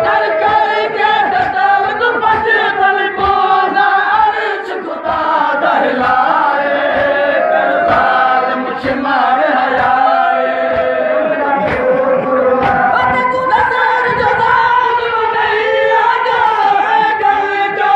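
A crowd of men chanting a noha together in a loud, steady unison, mixed with many irregular thumps.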